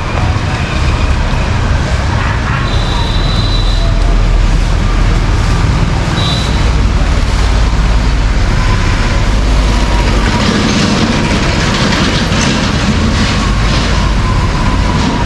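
Busy city street traffic: a dense mix of vehicle engines and road noise. A short high tone sounds about 3 s in, and a long steady tone runs through the second half and drops in pitch near the end.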